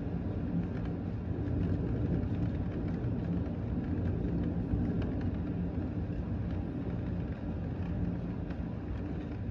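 Thunderstorm at night: a steady low rumble with faint ticks higher up.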